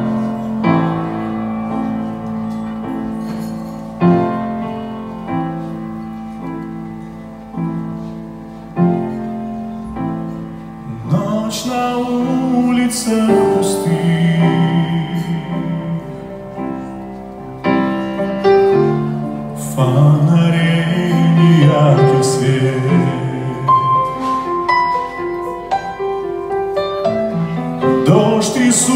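Grand piano playing a slow ballad introduction alone, then a male voice comes in about eleven seconds in, singing with vibrato over the piano accompaniment.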